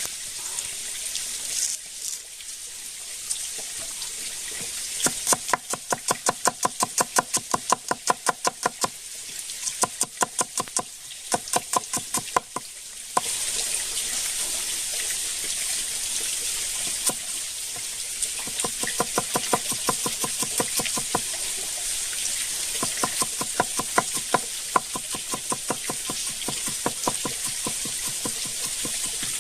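Runs of sharp, evenly spaced knocks, about three to four a second, over a steady high hiss.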